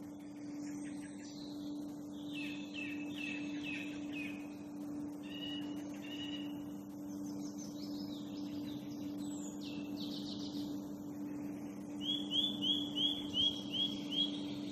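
Songbirds singing in woodland: a series of different short, high whistled phrases, then near the end a loud run of about eight quick, evenly spaced notes. A steady low hum runs underneath.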